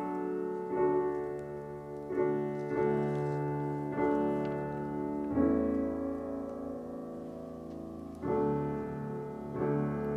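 Slow, quiet piano music: single chords struck every second or two and left to ring, one of them held for about three seconds from about halfway through.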